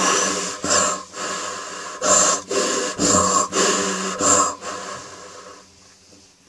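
A woman breathing hard into a tube in a run of short, gasping breaths that grow weaker and die away near the end.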